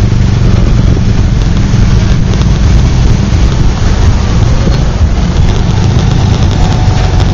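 Motorcycle engine running while it rolls slowly in heavy traffic: a loud, steady low rumble with road noise.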